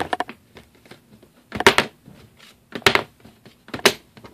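Empty brass bullet casing flipped and dropped onto a tabletop, clattering as it hits and bounces: four quick clatters of sharp clicks about a second apart.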